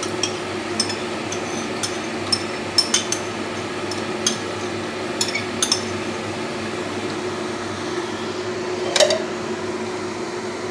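Metal spoon clinking and scraping against a ceramic bowl as coconut milk is scraped out into a cooking pot: a string of light, irregular clinks with a louder knock about nine seconds in, over a steady low hum.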